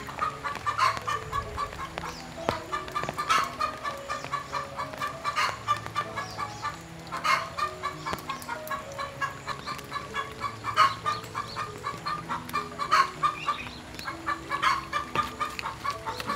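Chickens clucking in quick runs of notes that come back about every two seconds, over soft background music with low held notes.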